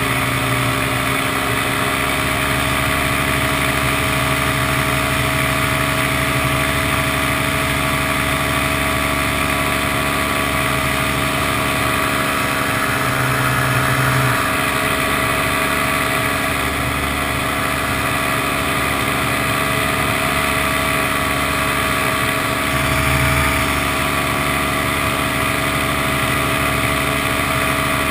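Paramotor engine and propeller running steadily in flight, a constant drone that swells slightly twice, about halfway through and again near the end.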